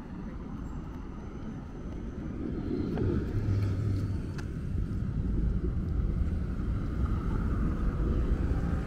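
City street traffic rumble with a tram passing, growing louder from about three seconds in, with a short low hum and a couple of faint clicks.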